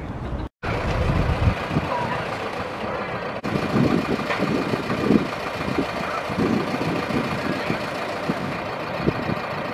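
Diesel engine of a Mercedes-Benz minibus running at low speed as it creeps in through a gateway.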